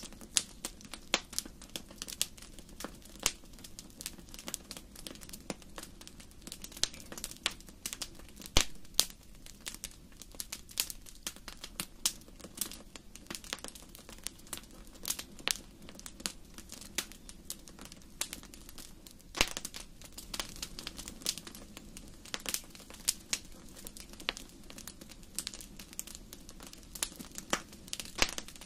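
Wood fire crackling in a fireplace: frequent irregular sharp pops and snaps over a steady low rush of the flames, with one louder pop about eight and a half seconds in.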